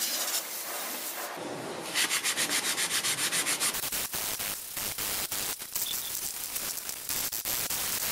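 A short spray of water hissing onto a cast aluminium engine head cover, then 240-grit waterproof sandpaper wet-sanding the aluminium by hand in rapid back-and-forth strokes, about six a second.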